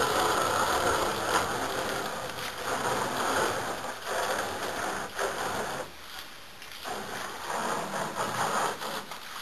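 Water splashing and sloshing, rising and falling in strength, with a brief lull a little past the middle.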